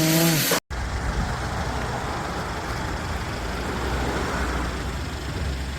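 An engine idling steadily, a low even rumble, after a sudden cut about half a second in.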